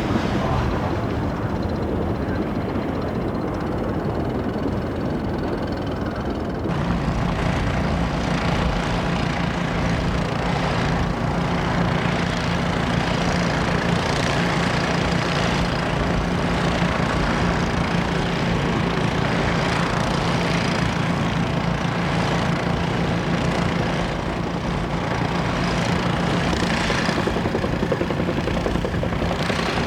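News helicopter's engine and rotor noise, a steady loud drone; about seven seconds in the sound changes abruptly and a steady low hum comes in and holds.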